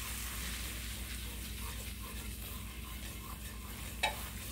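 Butter and flour sizzling in a nonstick skillet as a silicone-coated whisk stirs them into a roux for white gravy, a steady hiss with a brief click about four seconds in.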